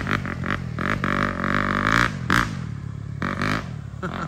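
Four-stroke Yamaha motocross bike engine being ridden off-road, its note rising and falling as the throttle is opened and closed.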